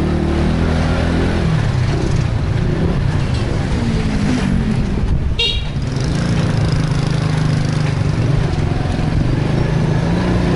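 Motor scooter engine running under way, with road and wind noise; the engine note eases off briefly around the middle and then holds steady again. A short horn toot sounds about halfway through.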